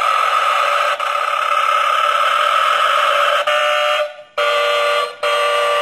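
Novelty semi-truck alarm clock going off, its small speaker playing a recorded truck air-horn sound: one long steady blast, breaking into short separate honks from about three and a half seconds in.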